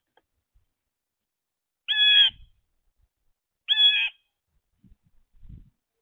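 Blue jay giving two loud, harsh jay calls about two seconds apart, each lasting about half a second. A few soft thumps follow near the end.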